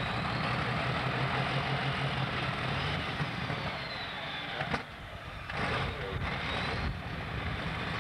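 Pulling tractor's engine running loudly at the start line, a steady rumbling drone over dense noise, with a single sharp click a little past halfway and a brief dip in level just after.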